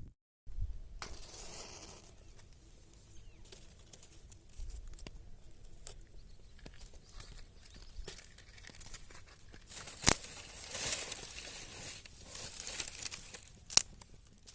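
Groundnut plants rustling and tearing as they are handled, with scattered small snaps and a sharp crack about ten seconds in and another near the end.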